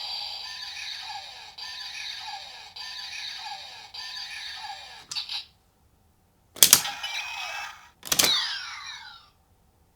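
CSM Lostdriver transformation belt toy playing its electronic sounds: a looping standby tune with a falling chirp about once a second, which stops about five seconds in. After a short pause come two sharp, ringing hits about a second and a half apart, the belt's transformation sound effects.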